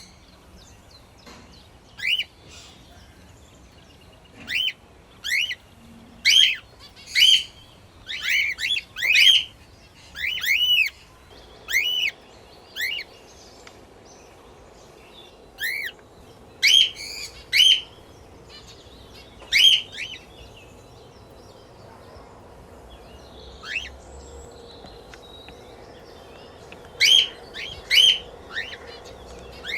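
Small pet parrots chirping: short, sharp, arched chirps, some single and some in quick runs of two or three, with a sparser stretch of several seconds in the last third.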